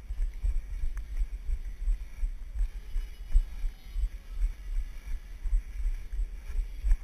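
Uneven low thumping rumble from the jostling of a body-worn action camera's microphone as the wearer walks.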